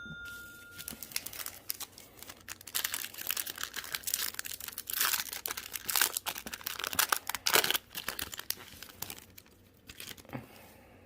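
Foil Yu-Gi-Oh! booster pack being torn open and crinkled in the hands, in irregular bursts of rustling and crackling that die down near the end.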